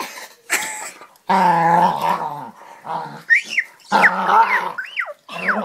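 Dog vocalizing at close range: a long low growl about a second in, then a run of short high whines that rise and fall in pitch through the second half.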